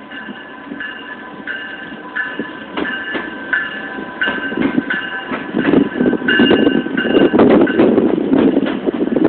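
NJ Transit ALP-46A electric locomotive and multilevel coaches rolling past, the rumble and wheel clatter growing louder about halfway through. A bell dings steadily over it, a little faster than once a second.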